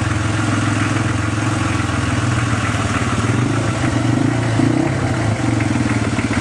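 Toyota Land Cruiser troop carrier's engine running steadily at low speed with an even pulsing beat, the vehicle rolling slowly up close.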